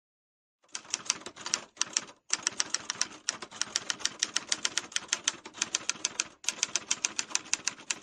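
Manual typewriter keys striking in fast runs of about eight clacks a second, starting just under a second in, with a few brief pauses between runs.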